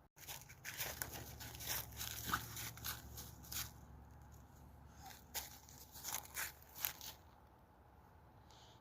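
Snow crunching in a run of short, irregular crunches that stop about seven seconds in.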